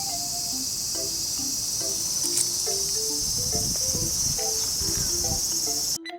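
A steady, high-pitched insect chorus in the outdoor ambience, with a simple melody of background music playing over it. The insect sound cuts off suddenly near the end while the music carries on, and a few low rumbles come through in the middle.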